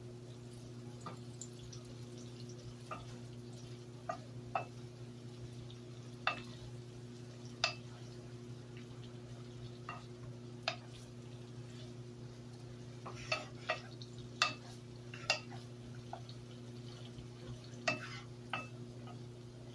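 Wooden spoon stirring diced eggplant and zucchini in a nonstick skillet, with scattered light knocks and scrapes against the pan that come more often in the second half. A steady low hum runs underneath.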